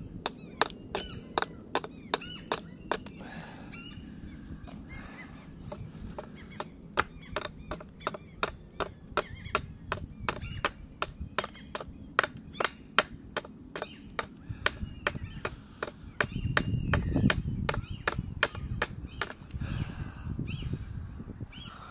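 Hatchet chopping down the length of an ash bow stave: quick, sharp strikes of the blade into the wood, about three a second, with a lull a few seconds in. A low rumble rises for a couple of seconds near the end.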